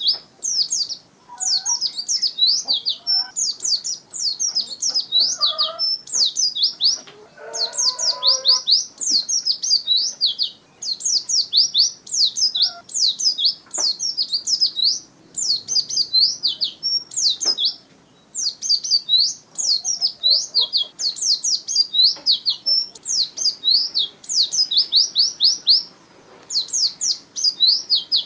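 White-eye (pleci) singing: fast runs of high, thin chirps and sweeping notes in quick succession, phrase after phrase with short pauses between.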